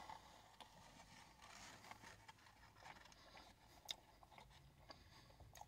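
Near silence with faint chewing of a burger and a few soft clicks, the clearest about four seconds in.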